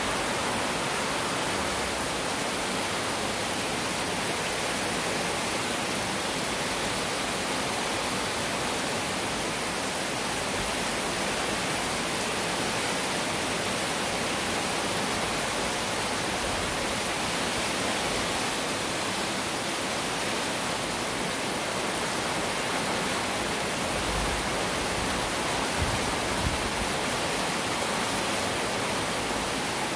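Heavy rain falling in a steady, even hiss, with a couple of brief low bumps near the end.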